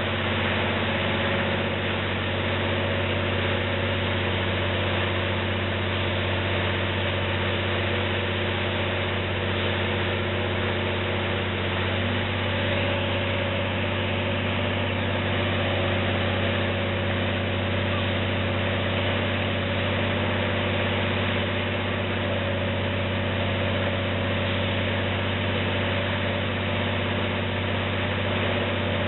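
Diesel locomotive engine idling steadily: a deep, even hum with no change in speed.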